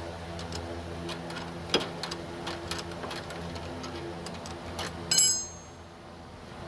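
Socket ratchet clicking in irregular runs as a bolt is turned on a car's steering rack mount, then a sharp metallic clink with a brief ring about five seconds in.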